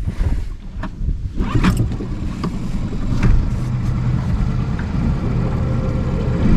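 Suzuki outboard motor running and pushing an inflatable RIB boat away, its drone getting louder from about a second and a half in. Music comes in near the end.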